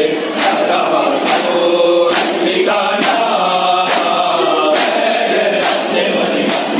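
Men's chorus singing a nauha, a Muharram lament, into a microphone, led by one voice with the group answering. Steady matam, the beating of chests by hand, strikes the rhythm a little more than once a second.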